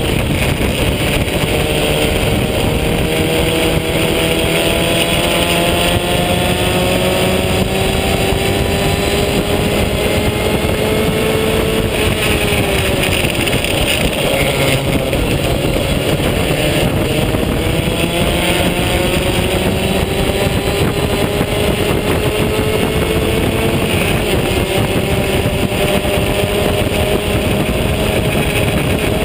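Onboard sound of a vintage open-wheel race car's engine running hard under racing load. Its pitch climbs slowly, drops sharply about twelve seconds in, climbs again, and dips a little near the end.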